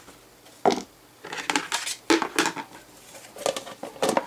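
A collapsible silicone bowl and its plastic grater lid being handled, giving a series of clicks and knocks, several in a quick cluster.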